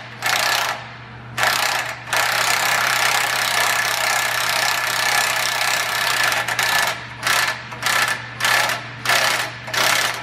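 Cordless impact wrench running exhaust bolts into a truck's Y-pipe and catalytic-converter flanges: two short runs, one long run of about four seconds, then a string of about eight quick trigger bursts as the bolts are snugged down.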